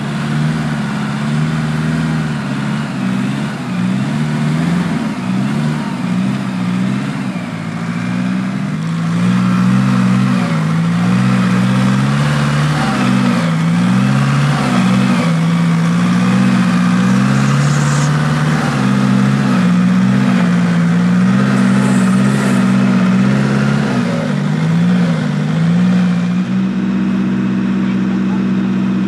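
Off-road 4x4's engine revving up and down again and again under load, settling to a steady note about three quarters of the way through.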